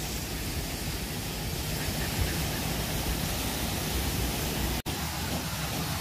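Steady rushing hiss of falling water from a waterfall, with an unsteady low rumble under it, broken by a momentary gap a little before five seconds in.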